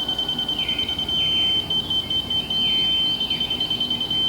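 Laser level receiver on a grade rod beeping with a single high tone: rapid beeps that switch to a continuous tone twice, the steady tone being the receiver's signal that it sits on the laser's beam, on grade.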